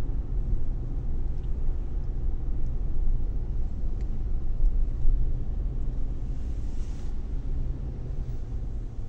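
Steady low rumble of a car moving slowly in heavy traffic, heard from inside the cabin, with a few faint clicks.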